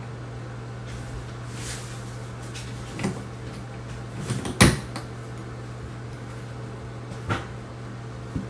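A few separate sharp knocks and clicks from hand tools and parts being handled, the loudest about halfway through, over a steady low hum.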